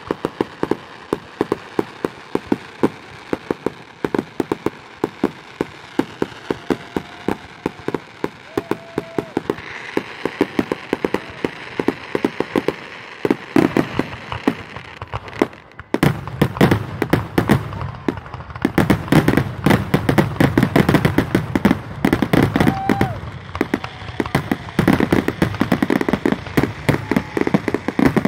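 Fireworks finale: a rapid run of bangs and crackles, several a second. About halfway through the barrage suddenly becomes louder and heavier, the bangs merging into a near-continuous rumble.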